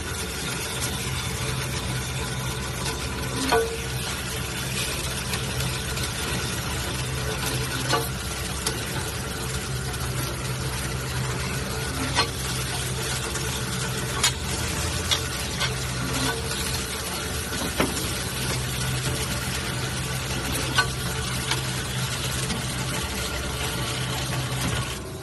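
Fully automatic horizontal band saw cutting metal bar stock with coolant flowing on the blade: a steady hiss of the cut over a low motor hum, with scattered sharp ticks.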